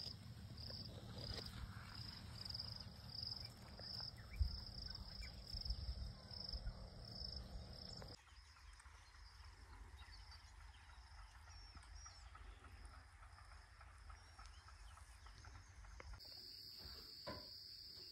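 Crickets chirping faintly, a high chirp repeating about twice a second. There is an abrupt change about eight seconds in, and from about sixteen seconds in a steady, unbroken high trill.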